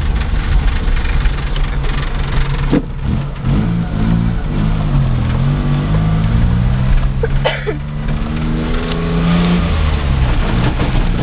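A 1997 Geo Metro's three-cylinder engine heard from inside the cabin while driving, its pitch rising and falling several times as the car speeds up and eases off, over steady road noise. A sharp knock about three seconds in.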